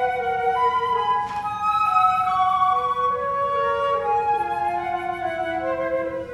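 Two concert flutes playing a classical duet, two lines of held notes moving against each other in steps.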